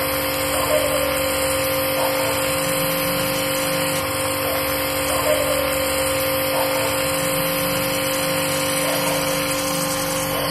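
Pressure washer spraying foam, running steadily with a constant motor hum over the hiss of the spray.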